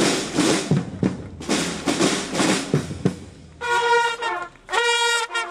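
Marching band playing: drums beating a marching cadence, then about three and a half seconds in the brass comes in with held notes, in two short phrases with a brief break between.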